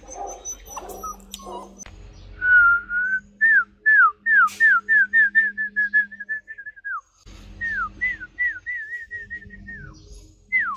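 Clear whistling: a held note about two seconds in, then a quick run of falling whistled notes that settles into a fluttering trill, then after a short break about seven seconds in, more falling whistles.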